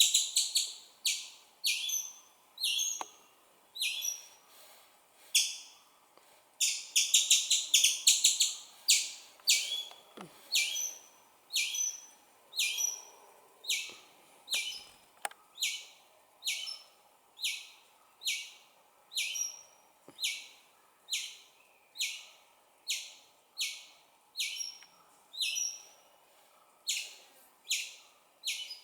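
Baby squirrel chirping repeatedly, its call for its mother: sharp, short, high chirps about one and a half a second, with a quick run of rapid chirps about seven seconds in.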